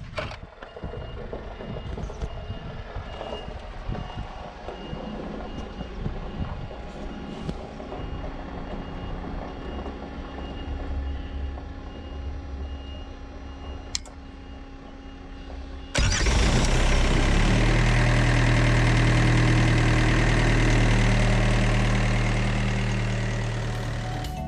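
Diesel engine of a truck or refrigerated semitrailer idling, with a faint repeated high beep over the first several seconds. About two-thirds of the way through, a much louder steady engine sound with a strong low hum cuts in abruptly.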